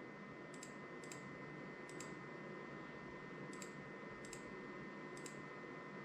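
About six faint, irregularly spaced clicks of a computer mouse, as menu options are selected in keyboard-lighting software. A faint steady electrical whine sits underneath.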